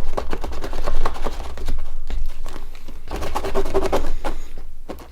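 Dense crackling and rustling as small plastic phone parts are worked around in a container of cleaning foam, thinning out near the end.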